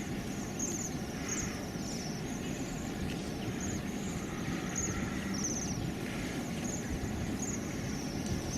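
Small bird chirping repeatedly: short, high trilled notes about once or twice a second over a steady low rushing background.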